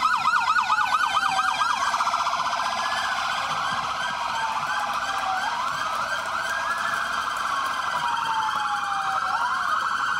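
Sirens of several Federal Highway Police vehicles sounding together. A fast yelp rises and falls about five times a second for the first couple of seconds, then gives way to a rapid warble overlapped by slower wails that rise and fall over a few seconds each.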